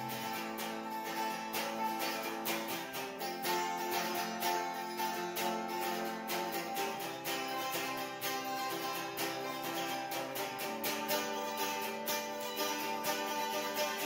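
Hollow-body electric guitar with a capo, strummed in a steady, even rhythm of chords.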